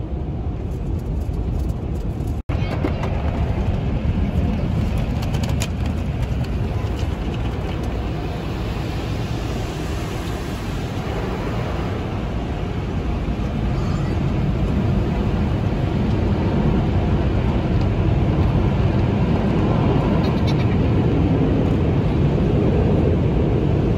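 Automatic car wash heard from inside the car: cloth brushes sweeping over the windshield and body and water spraying against the glass, a steady rushing and drumming noise. It cuts out for an instant about two seconds in and grows a little louder in the second half.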